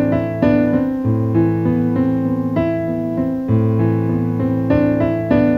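Background music: a piano playing a slow repeating figure of struck notes over a low held bass note that changes every couple of seconds.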